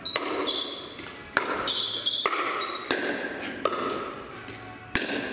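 Pickleball rally: a hard plastic ball struck by paddles and bouncing, about one sharp pop a second, each ringing on in the echo of a large hall.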